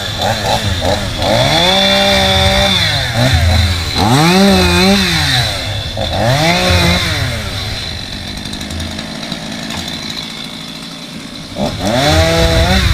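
New Stihl two-stroke chainsaw running. It revs up and back down three times in quick succession, drops to a steadier low speed for a few seconds, then revs up again near the end.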